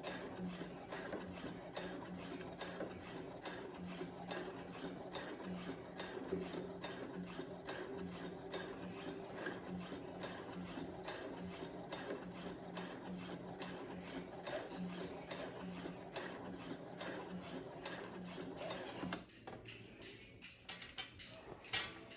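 Brother CS7000X computerized sewing machine running steadily as it stitches a seam, a fast even run of needle strokes over a low hum. It stops about three seconds before the end, and a few light clicks follow.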